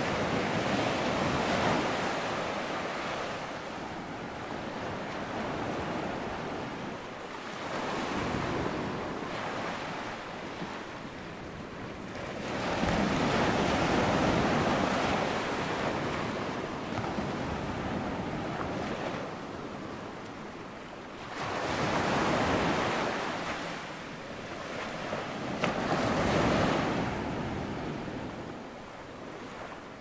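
Ocean surf: waves breaking and rushing in, the wash swelling and fading in slow surges every several seconds.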